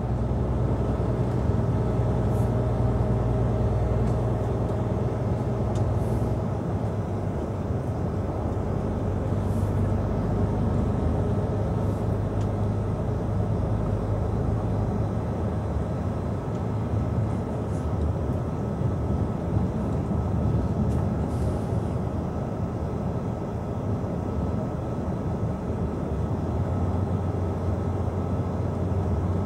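Truck engine and road noise heard from inside the cab while the truck is driving: a steady low drone with a constant tyre and road rumble.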